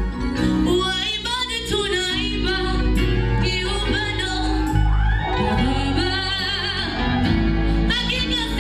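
A woman singing a gospel song over instrumental backing music, her held notes wavering with vibrato.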